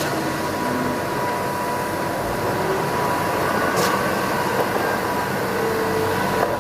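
Steady hiss of water spraying, rinsing mud off a toy cement mixer truck, with a faint steady tone underneath.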